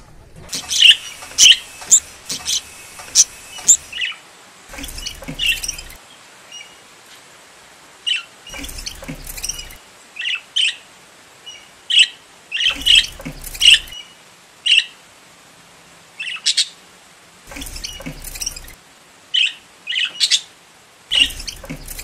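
Pet budgerigars chirping: many short, sharp, high chirps in quick clusters with short pauses between them.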